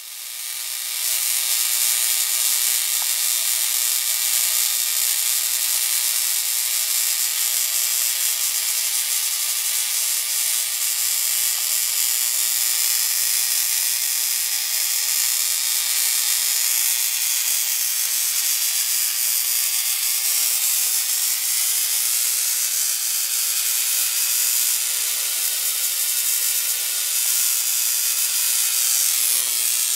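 High-voltage electrical discharge hissing steadily: a dense, high-pitched hiss with faint steady tones beneath. It starts abruptly.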